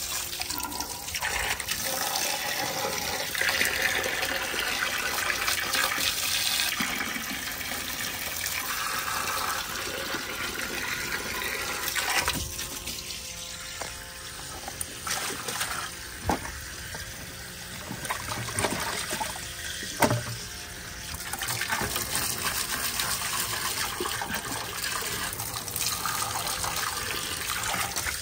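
Running, splashing water. It turns quieter about twelve seconds in and picks up again a few seconds before the end, with a few sharp clicks in the quieter stretch.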